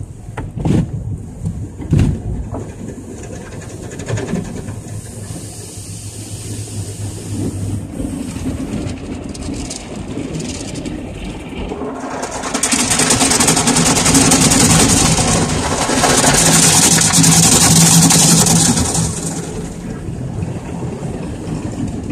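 Automatic car wash heard from inside the car: a few thumps of the wash cloths and brushes against the body at first, then a steady mechanical rumble. About halfway through, a loud rush of water spray on the car lasts several seconds, then eases off.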